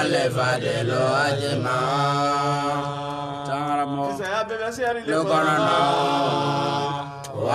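A man's voice chanting Islamic devotional verses unaccompanied, in long, wavering held notes, with brief pauses for breath.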